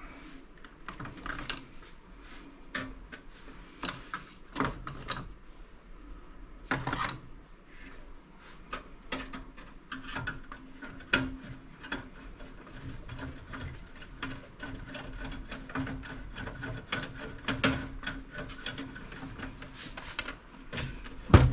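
Screwdriver working at screws in a metal PC case: irregular clicks, taps and scraping of metal on metal, with a faint steady hum underneath in the second half.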